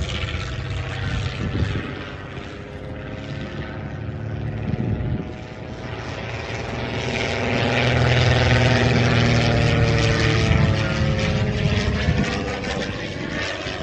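Fiat G.46 trainer's Alfa Romeo 115 Ter four-cylinder piston engine and propeller droning overhead during aerobatics, the pitch bending up and down as the aircraft moves. It swells to its loudest about eight to eleven seconds in, then fades a little.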